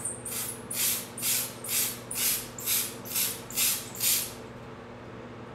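Homemade hand-pump sprayer being pumped by hand: about ten short hissing air strokes, roughly two a second, stopping about four seconds in.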